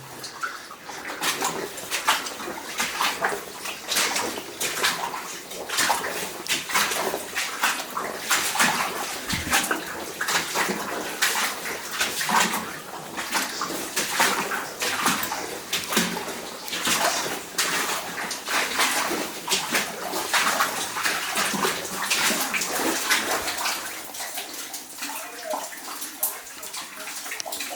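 Legs in chest waders wading through thigh-deep flooded mine water, sloshing and splashing with each stride in an irregular, continuous run.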